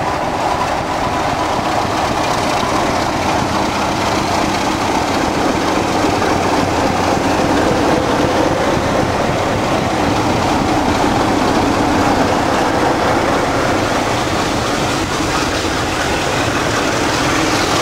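Class 33 diesel locomotives, with their Sulzer eight-cylinder engines under power, hauling a passenger train slowly past along the platform, the coaches rolling by after them. The sound is loud and steady after building up in the first second.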